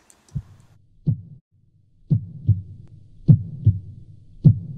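Heartbeat sound effect: pairs of low lub-dub thuds repeating a little more than once a second over a low hum. The beat turns steady after a brief lull about two seconds in.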